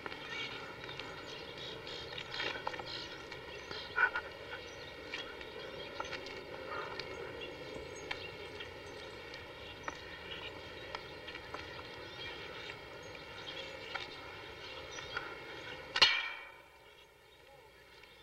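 Outdoor background noise on an old camcorder recording, dotted with faint ticks and knocks, including a sharper knock about four seconds in. Near the end there is a loud sharp click, after which the sound turns much quieter.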